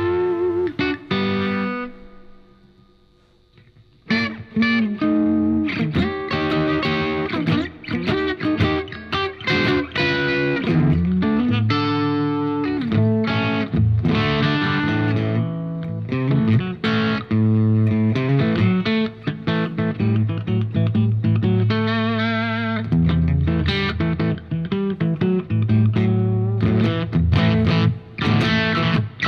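Electric guitar played through a Diezel Schmidt amp with a Scarlet Vibe pedal on: chords and single-note lines, some notes wavering with the vibe effect. About two seconds in the playing rings out and fades before starting again.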